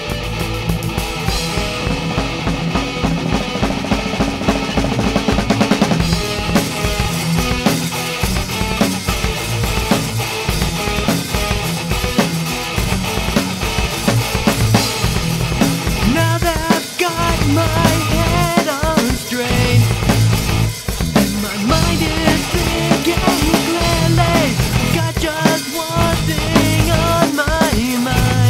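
Melodic pop punk song playing: full rock band with a driving drum kit, bass and guitars. A wavering melody line comes in over the band about halfway through.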